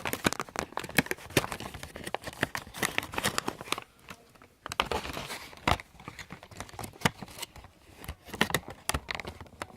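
Packaging crinkling and rustling, with many small clicks and knocks, as a cable is worked back into its retail box by one hand; it pauses briefly about four seconds in.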